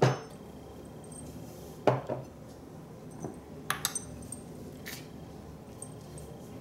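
Kitchen utensils and containers knocking and clinking as they are handled. There is a sharp knock at the start and two more about two seconds in, then a few lighter, ringing clinks around four seconds in.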